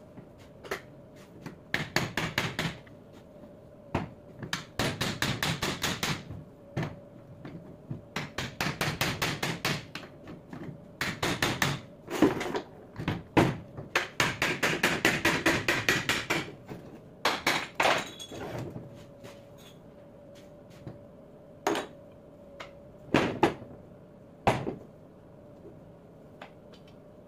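A hammer tapping on a 24-volt alternator's aluminium housing, first in quick runs of many blows, then a few single knocks, to knock the case halves apart.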